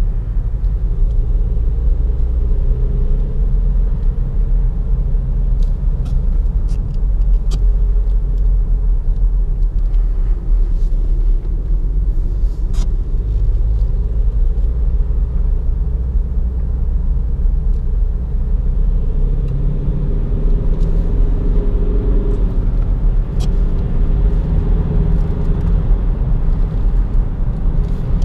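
Kia Optima SW's 1.7 CRDi four-cylinder turbodiesel heard from inside the cabin while driving: a steady low rumble of engine and road noise. The engine note shifts up and down in pitch about two-thirds of the way through.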